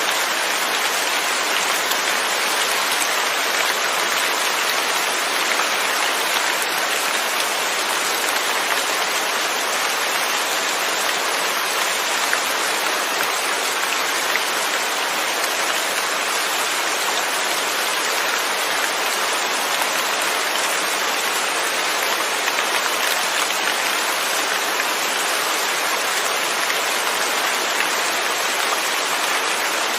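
Steady rain falling, without thunder: an even, unbroken hiss of raindrops.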